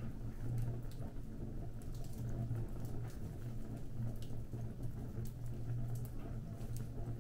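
Fire burning, with scattered crackles and pops over a low, steady rumble.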